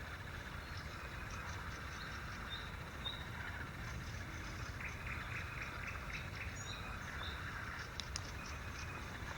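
Birds chirping and singing, many short high calls overlapping, over a steady low rumble.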